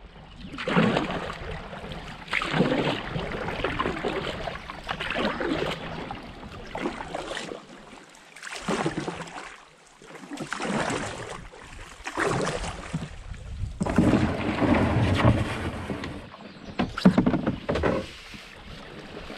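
A canoe's hull scraping and grinding over rocks and gravel as it is dragged ashore up a stony take-out path. It comes in repeated rough pulls, one every second or two.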